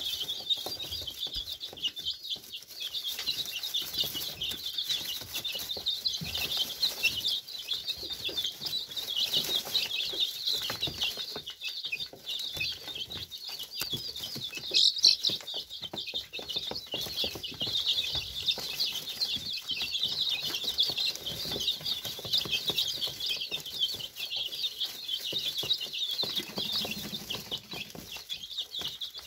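A flock of four-week-old chicks peeping constantly in high, overlapping chirps, with one louder call about halfway through.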